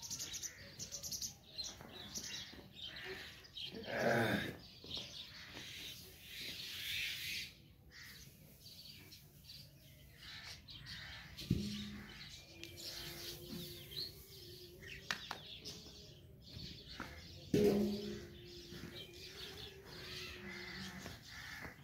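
Birds chirping and calling throughout over the rustle of wheat straw being shaken out of a sack onto a heap, with two sharp knocks, one about halfway and one near the end.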